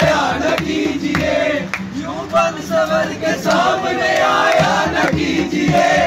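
A crowd of young men singing and chanting together loudly, with strokes on a hand drum.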